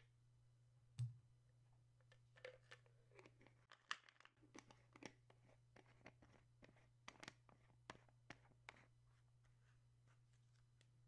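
Faint, scattered crunches and clicks of a stone mortar and pestle, with a single knock about a second in. The crunching thins out and stops near the end.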